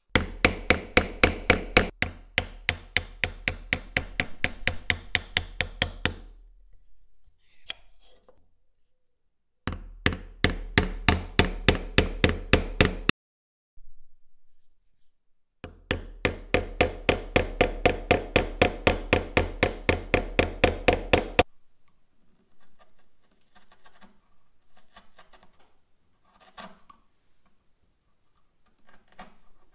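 A chisel struck over and over to chop dovetail waste out of hardwood: sharp, ringing blows at about four to five a second, in three runs that each stop abruptly. Near the end come quieter, irregular taps and scrapes of a chisel paring by hand.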